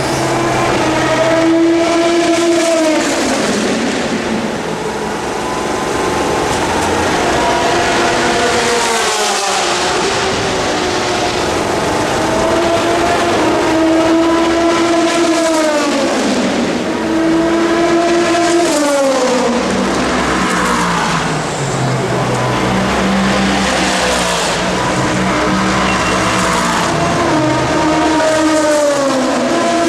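Racing car engines running at high revs as cars pass one after another, each engine's pitch sliding down as it goes by.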